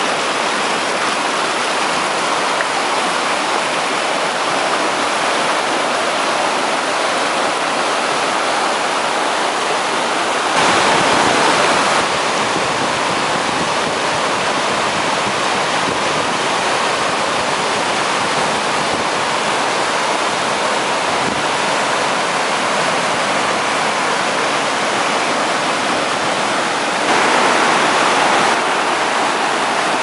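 Whitewater of a waterfall rushing and churning down a broad, bare rock slab at close range: a steady, loud rush that grows louder for a second or two about ten seconds in and again near the end.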